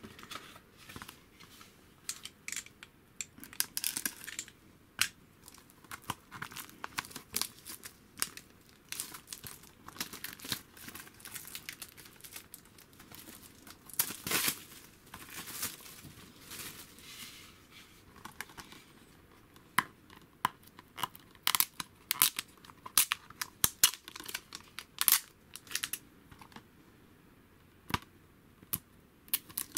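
Blu-ray packaging being handled and unwrapped: irregular crinkling and tearing of plastic wrap, with longer tearing rustles about four seconds in and around the middle. A quick run of sharp plastic clicks and taps from the cases follows later on.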